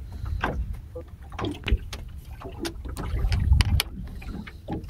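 A low rumble of wind and water around a small open fishing boat, with scattered sharp knocks and clicks as a longline is hauled in by hand. The rumble swells about three and a half seconds in.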